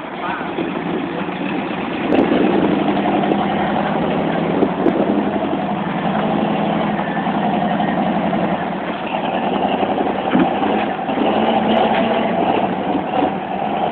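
Toyota rock crawler's engine running steadily under load as the buggy climbs a rock ledge, getting louder about two seconds in and holding there.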